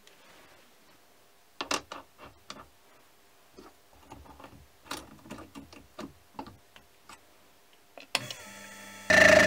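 Metal clicks and taps as a round aluminium part is seated in a three-jaw chuck and the jaws are tightened with a chuck key. Near the end, a click and a low hum, then a small milling machine's spindle starts running, much louder.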